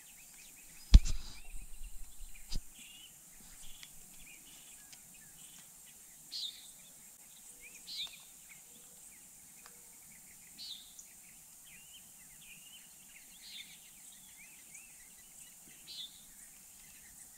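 Birds calling around a pond: short, high chirps repeating every two to three seconds over a quiet outdoor background. A sharp knock with a brief low rumble comes about a second in.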